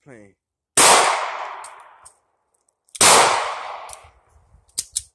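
Two pistol shots about two seconds apart, each with a long echoing tail.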